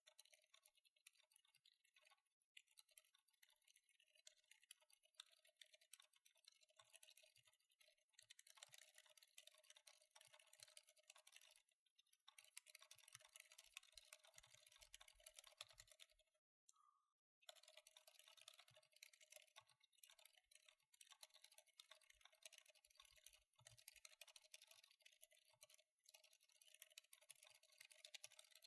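Quiet typing on a Mode Encore mechanical keyboard with Anthracite silent tactile switches on a copper plate: a rapid, irregular run of soft keystrokes. The typing pauses briefly about twelve seconds in and stops for about a second a few seconds later.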